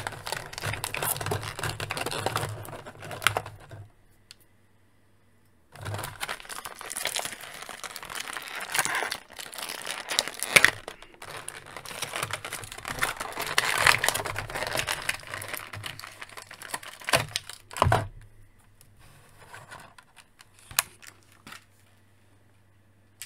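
Stiff clear plastic blister packaging crinkling and crackling as an action figure is worked out of it, in bouts with a short near-silent pause about four seconds in. Two sharp clicks come at about seventeen and eighteen seconds, followed by fainter handling.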